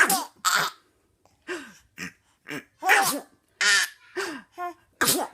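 A woman doing mock Donald Duck sneezes: a rapid run of short, squawky, hissing sneezes, about one every half second.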